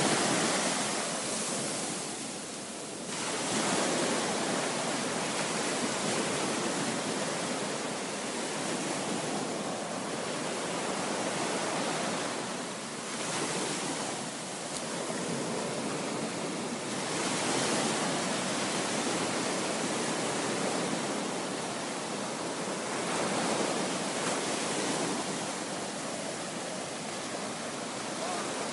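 Surf washing onto a beach: a steady rush of breaking waves that swells and eases every few seconds.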